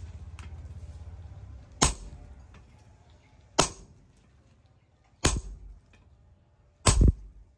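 Sledgehammer blows on a handled set tool held against a red-hot steel bar on an anvil, forging a crowbar: four sharp metallic strikes, each ringing briefly, about a second and a half apart. A low hum fades out in the first couple of seconds.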